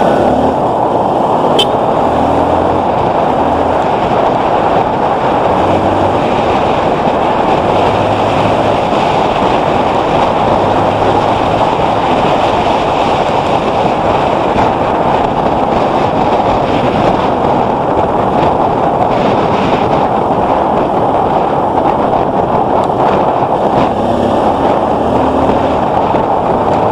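Steady rush of wind buffeting the microphone of a moving dirt bike, with the Kawasaki KLX150L's single-cylinder four-stroke engine running faintly beneath it.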